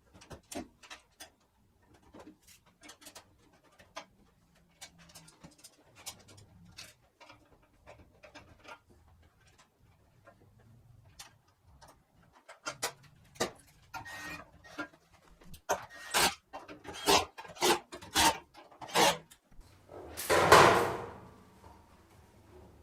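Hand assembly of a steel welding cart: scattered small clicks, taps and knocks of screws and metal parts being handled and fastened, growing busier toward the end, with one louder clatter about 20 seconds in.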